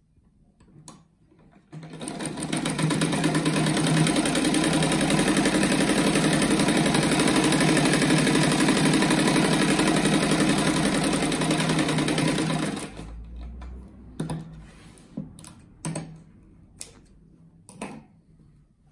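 Sewing machine stitching a patchwork block, running at a steady speed for about eleven seconds after starting up about two seconds in, then stopping. A few light clicks and handling sounds follow as the fabric is moved.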